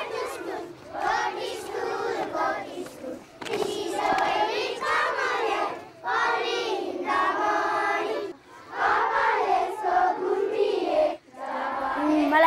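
A group of schoolchildren singing together in unison, in phrases of about two to three seconds with short breaks between them.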